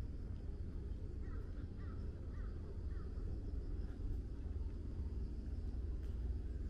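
A crow cawing four times in quick succession, each call sliding down in pitch, over a steady low outdoor rumble.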